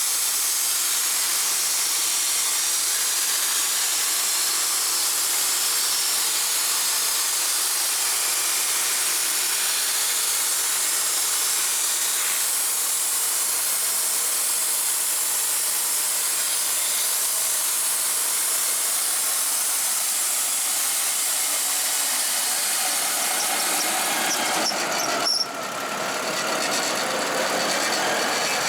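Wood-Mizer LT35 band sawmill cutting through a log: a steady, loud high hiss and whine of the band blade in the wood over the mill's engine. Near the end the sound changes suddenly.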